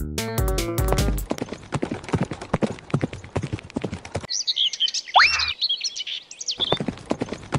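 A cartoon footstep sound effect: rapid, clip-clop-like taps as an animated animal walks. Music is heard in the first second, and a burst of high chirping calls, including one quick rising sweep, comes in about halfway through.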